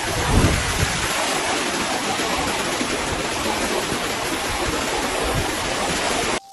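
Floodwater rushing through a street in a steady, loud torrent: overflow from a burst main sewer collector after a downpour. A couple of low thumps come about half a second in, and the sound cuts off abruptly just before the end.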